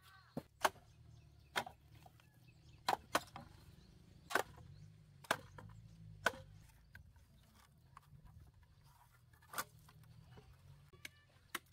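Chopping into wood: about ten sharp, irregularly spaced blows, some in quick pairs, with a long gap near the middle.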